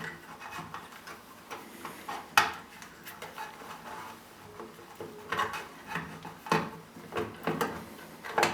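Irregular clicks and knocks of a circuit board and its connectors being handled and fitted back into a vinyl cutter's casing, with the loudest knock about two and a half seconds in.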